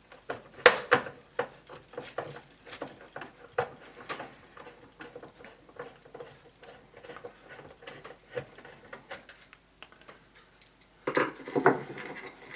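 Small irregular clicks and taps of a screwdriver and screws working on a Commodore 64's plastic case, with a louder clatter of handling about eleven seconds in.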